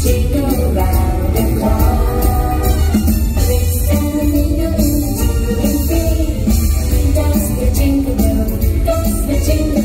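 A pop song with a steady beat and strong bass, with singing.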